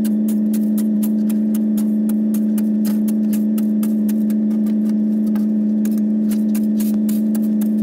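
A vehicle engine running at a steady speed, a constant even drone, with many quick sharp ticks scattered over it.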